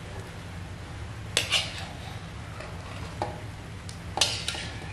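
A metal utensil clinking and scraping against a wok as boiled instant noodles are scraped out into a stainless steel tray. There are a couple of sharp clinks about a second and a half in, one around three seconds, and two more near the end, over a low steady hum.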